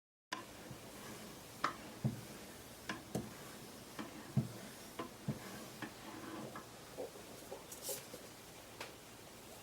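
Irregular clicks and light knocks, roughly one or two a second, with a couple of heavier low knocks near two and four and a half seconds in: hone arms of a Wicked Edge guided sharpener tapping and stroking against a knife blade.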